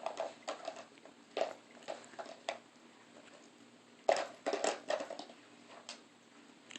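A dog working a treat puzzle toy, knocking and shifting its pieces: irregular clacks and knocks, with a quick cluster about four seconds in.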